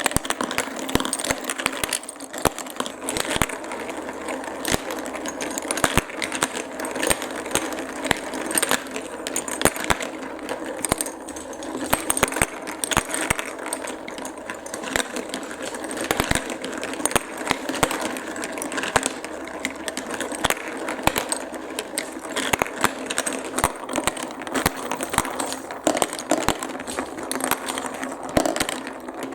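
Marbles rolling and clattering down a plastic block and magnet-piece marble run, with many quick irregular clicks as they strike and drop through the pieces.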